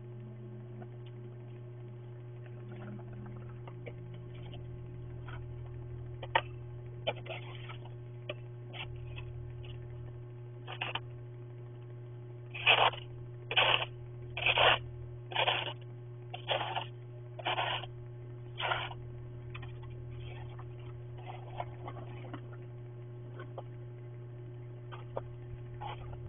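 Snow shovel scraping along a snowy walkway in about seven strokes roughly a second apart, heard through a security camera's microphone over a steady electrical hum.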